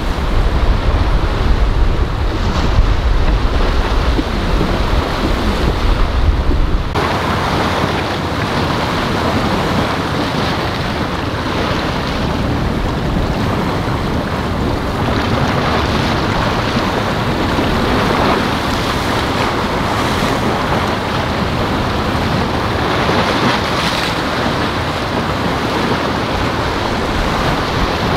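Waves and surf washing, with heavy wind rumble on the microphone for about the first seven seconds; the sound then changes abruptly to a steadier rush of water without the wind rumble.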